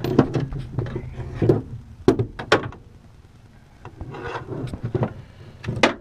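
Hand tools being handled at the steering column: a socket on an extension clicking, knocking and scraping as it is tried on the bolts, with rubbing and rustling between the sharper knocks.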